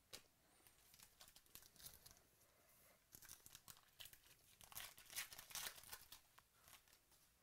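A trading-card pack's wrapper being torn open and crinkled by hand: faint, scattered crackling that grows busier about halfway through.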